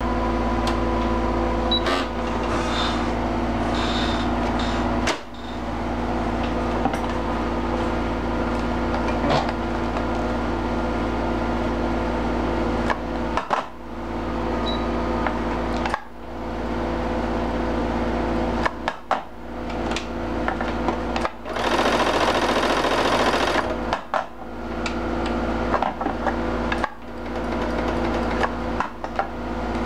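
Computerized sewing machine running with its motor and needle mechanism at a steady speed. It stops and restarts about seven times, and has a louder, rougher stretch a little past the middle.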